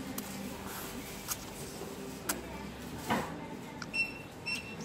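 Rice noodles being slurped and chewed from chopsticks, with small mouth clicks and a rising slurp about three seconds in. Two short high beeps near the end, over a low steady hum.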